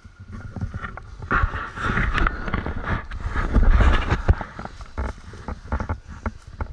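Irregular knocks, scraping and rustling as the dirt bike is handled on rocky, leaf-covered ground, loudest from about one to four and a half seconds in; no engine is heard running.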